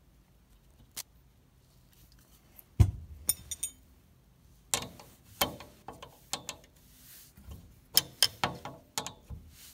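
A wrench turns a nut on a bolt, drawing a new bushing into a steel fitting and pushing the old bushing out. It gives a run of irregular metal clicks and clinks, with one louder knock about three seconds in, and the clicking grows busier from about halfway on.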